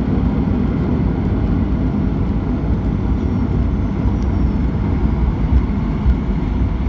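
Cabin noise inside a Boeing 737-900ER on the ground after landing: a steady low rumble from the airliner's engines and airframe.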